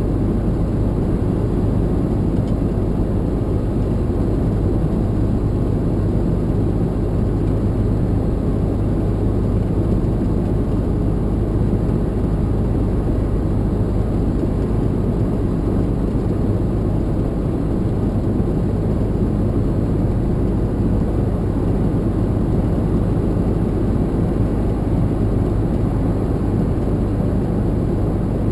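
Lorry engine and road noise heard from inside the cab while driving: a steady low drone with no change in pace.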